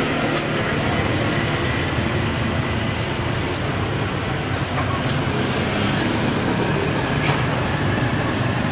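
Steady street-traffic rumble of passing engines, mixed with the hiss of oil deep-frying battered banana pieces, and a few light clicks.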